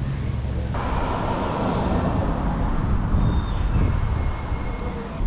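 Steady outdoor street noise: a rumbling hiss of the kind road traffic makes. Its character changes abruptly about a second in, and there are a couple of brief faint high tones near the middle.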